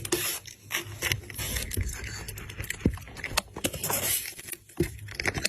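Kittens scrabbling and scratching about, irregular scraping with many quick taps and clicks.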